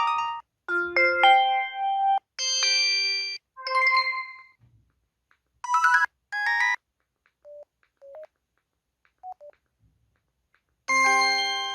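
IM-S640S mobile phone's built-in alert sounds played one after another: short electronic chimes and jingles, each about a second long, separated by pauses, with a few faint short blips in the middle.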